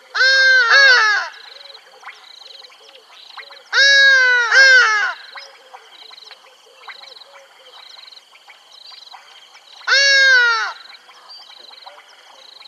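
Three bouts of loud, harsh bird calls, about a second each, near the start, around four seconds in and near ten seconds. In each bout two or three calls overlap and slide down in pitch. A faint, evenly pulsing chirping chorus carries on underneath.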